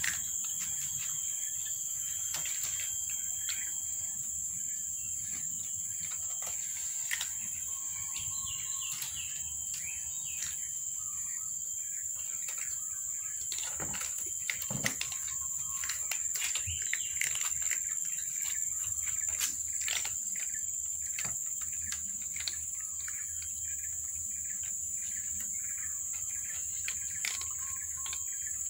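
A steady high-pitched insect drone with birds chirping, over scattered sharp clicks and crunches of cats chewing dry kibble close by.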